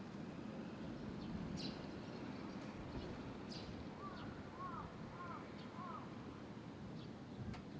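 Young barn swallows giving short, high chirps now and then over a steady low background rumble. About halfway through, another bird gives a run of about six short, arched calls.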